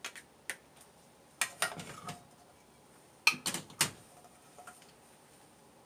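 A spatula scraping and knocking against a frying pan and a ceramic plate while prawns and sauce are served out: a few light taps, then two short bursts of clatter, about a second and a half in and again about three and a half seconds in.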